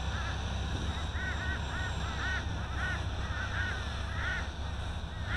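Birds calling over and over, short arched chirps in quick groups of two or three, over a steady rumble of wind on the microphone.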